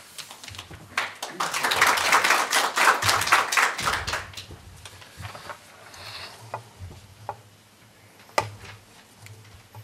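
Audience applauding for a few seconds, then dying away. Later come a few handling knocks, one of them sharp near the end.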